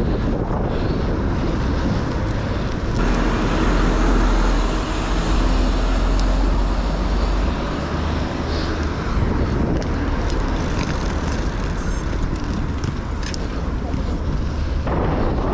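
Wind noise on a GoPro's microphones while cycling through city traffic, with cars passing; the wind noise is heavier than it should be because the furniture-pad windscreens on the microphones are badly stuck on.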